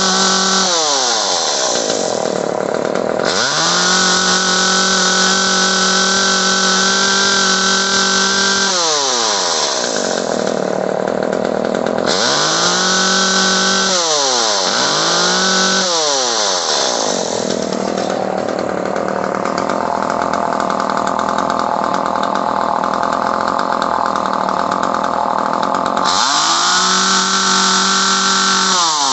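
Echo CS-303T two-stroke chainsaw engine revved to full throttle and let fall back to idle several times, its pitch sweeping up and down. It is held at high revs for a few seconds at a time, with a longer stretch at idle in the middle. The high-speed mixture screw is being set while it runs, after an adjustment meant to cure a bog under throttle.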